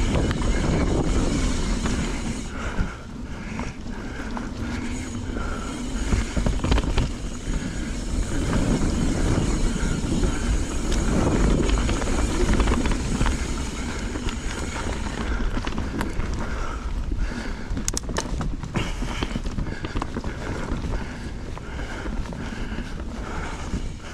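Knolly mountain bike riding down dirt singletrack: wind on the action camera's microphone and the rumble of tyres on the trail, with sharp clicks and rattles from the bike, most of them a little after the middle.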